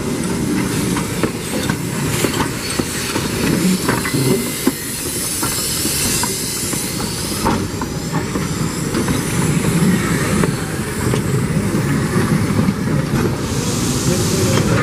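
Denver & Rio Grande Western narrow-gauge steam locomotive 491, its tender and its cars rolling past close by. The rumble of the train is steady, with wheels clicking and clanking irregularly over the rail joints.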